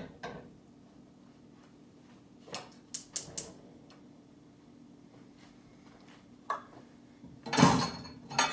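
Scattered clicks and knocks of cookware being handled on a kitchen stove, with a louder clatter near the end, over a faint steady hum.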